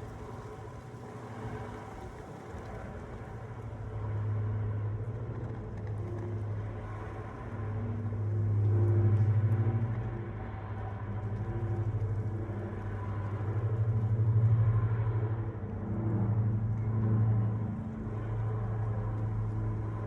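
A low rumble that swells and eases several times, loudest about nine and fourteen seconds in.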